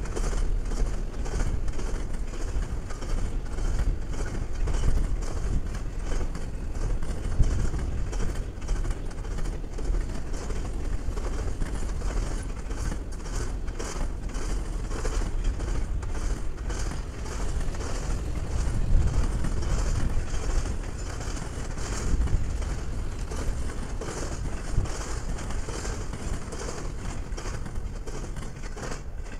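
Double-stack intermodal freight train passing at speed: a steady rumble of steel wheels on rail with a continuous run of clacks as the cars roll over the track.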